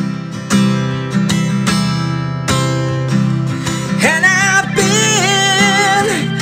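Song with acoustic guitar strumming chords; about four seconds in, a held, wavering melody line comes in over the strumming.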